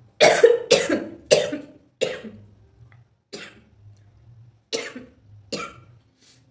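A person coughing in a fit, four hard coughs in quick succession and then three weaker ones spaced out, set off by the sharp irritation of dry red chilli.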